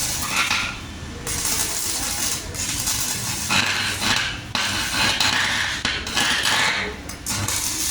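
Arc welding with a 270 A inverter welding machine: the arc crackles and sizzles in stretches of a second or two, with short breaks between them.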